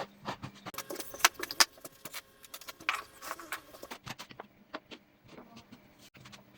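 Irregular light clicks, taps and clinks of hand tools worked on wood. The sharpest come about a second and a half in, and they thin out after about four seconds.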